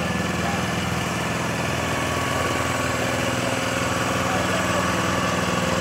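An engine idling steadily, with an even, unchanging note.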